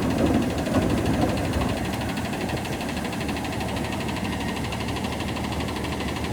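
Autocar ACX Xpeditor garbage truck's diesel engine idling steadily, with a few light knocks in the first second or two.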